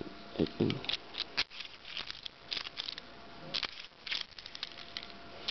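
Hard plastic parts of a Transformers action figure and its toy gun being handled, giving scattered small clicks and taps.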